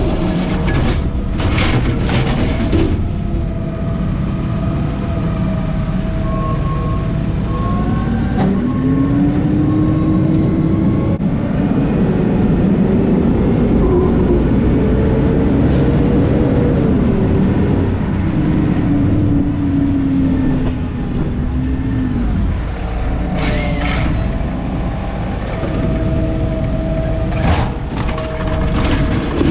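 McNeilus ZR automated side-loader garbage truck working. The hydraulic arm whines as it sets a recycling cart down, then the engine rises in pitch as the truck pulls away and falls as it slows. A short air-brake hiss comes about 23 seconds in, and near the end the arm whines again as it reaches for the next cart.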